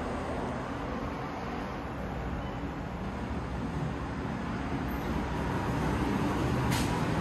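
Steady background rumble while a passenger elevator's stainless-steel doors slide open in the second half, with a single knock near the end.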